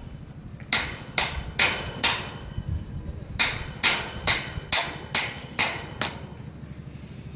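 Hammer blows on a long rebar ground spike, driving it into the ground as a wind anchor: four sharp metallic strikes, a short pause, then seven more, about two a second.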